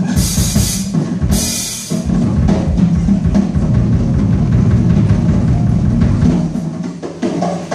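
Live drum kit solo: two cymbal crashes in the first two seconds, then rapid, dense rolls on the drums with bass drum underneath.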